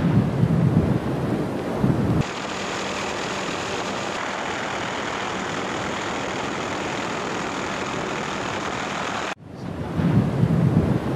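Kilauea lava fountain erupting: a low rumble that rises and falls. About two seconds in it gives way abruptly to a steady, even hiss lasting about seven seconds. The rumble returns near the end.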